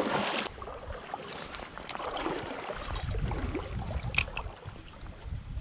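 Shallow creek water splashing for the first half second, then running quietly with a low rumble. A sharp click comes about four seconds in as the spinning reel is handled.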